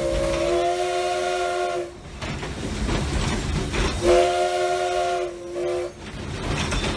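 Steam locomotive chime whistle blown from the cab by its pull cord: a chord of several steady notes that swells slightly and stops about two seconds in, then a second blast of about two seconds starting about four seconds in, with a brief dip near its end. The locomotive's running rumble fills the gaps.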